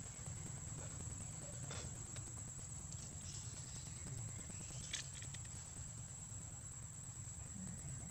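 Quiet outdoor ambience: a steady high-pitched hum over a low rumble, with a few faint clicks about two and five seconds in.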